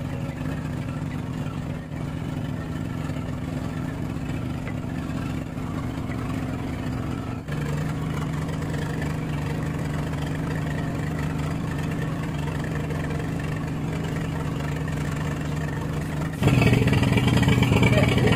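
Engine of a bagang lift-net fishing boat running steadily with a low, even drone. The tone shifts abruptly about seven and a half seconds in, and it gets louder near the end.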